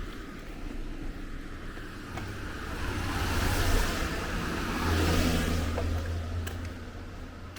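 A car passing on a wet road: tyre hiss and a low engine hum build to a peak about four to five seconds in, then fade away.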